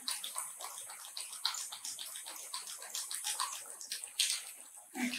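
Battery-powered crawling crab toy's small motor and plastic gears running, a thin fizzy rattle with many small irregular clicks.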